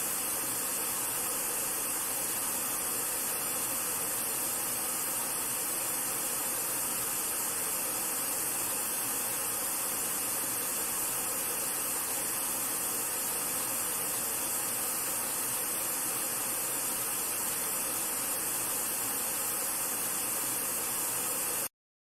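White noise played through a Sony SRS-HG10 Bluetooth speaker with Extra Bass mode off: a steady hiss that cuts off suddenly near the end.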